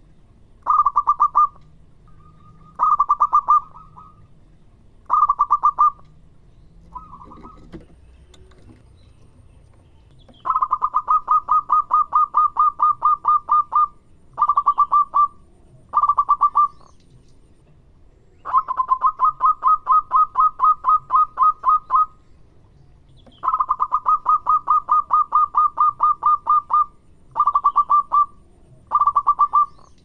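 Zebra dove (perkutut) calling in bursts of rapid staccato cooing notes: several short bursts and three longer runs of a few seconds each, with a pause of about three seconds before the long runs.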